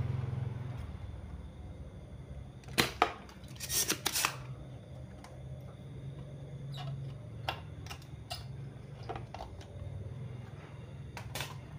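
Spring-loaded desoldering pump snapping and clicking as it is cocked and fired to suck molten solder from a diode's joints on a circuit board. A few loud snaps come in quick succession about three to four seconds in, followed by scattered fainter clicks.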